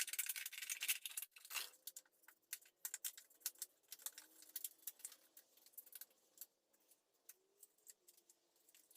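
Scissors cutting through a thin plastic pop bottle: faint, irregular crackling clicks, dense for about the first two seconds, then thinning to scattered snips.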